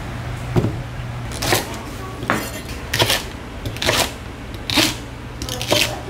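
A knife cutting a green onion into short lengths on a wooden cutting board: about seven crisp cuts, roughly one a second, over a low steady hum.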